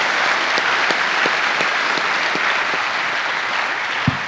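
Large audience applauding steadily, with a couple of low thumps near the end.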